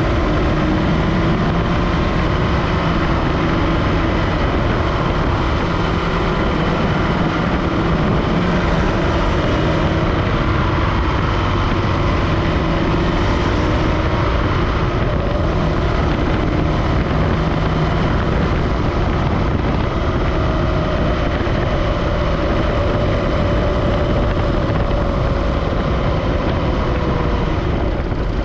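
Supercharged Scion FR-S's flat-four engine running, heard from the engine bay: a steady rumble with several held tones, one of which slides slowly down in pitch in the last third. It carries the weird, load-dependent engine-bay noise the owner is trying to identify.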